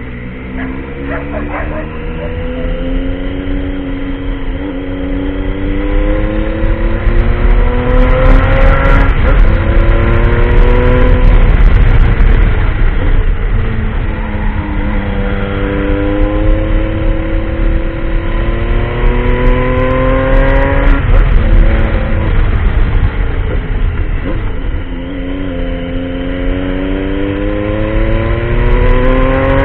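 Triumph Tiger adventure motorcycle engine pulling hard while being ridden, its pitch climbing through the revs, dropping at gear changes and falling as the throttle is eased, several times over. Heavy low wind rumble on the microphone runs underneath, with a few sharp clicks.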